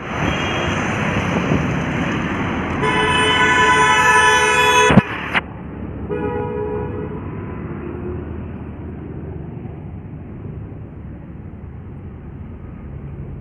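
Road traffic noise with a vehicle horn honking steadily for about two seconds. Two sharp knocks come right after it, then a shorter, fainter honk about six seconds in, and steady traffic noise follows.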